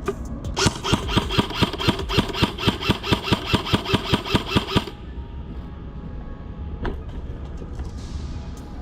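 Airsoft gun firing a rapid string of about twenty shots, roughly five a second, with a mechanical whine under the shots, stopping about five seconds in; one more sharp crack comes a couple of seconds later.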